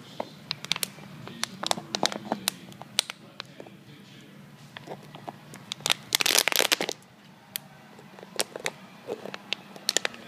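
A poodle chewing a plastic water bottle: scattered sharp crackles and clicks of the thin plastic under its teeth, with a dense burst of crinkling about six seconds in.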